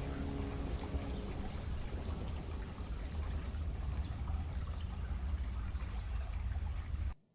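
Running water splashing steadily, with a strong low rumble, as from a garden fountain or cascade; the last notes of background music fade out in the first second, and the sound cuts off abruptly near the end.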